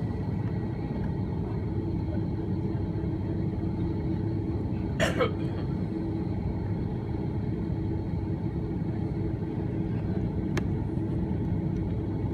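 Steady low rumble inside the cabin of an Airbus A330-300 airliner on the ground, with a faint steady hum. A brief high sweeping sound about five seconds in, and a single sharp click near the end.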